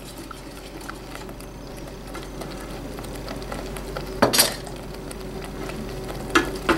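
Barbecue sauce base simmering steadily in a pot, sizzling and bubbling while a silicone spatula stirs it. A brief louder knock comes about four seconds in, with two more near the end.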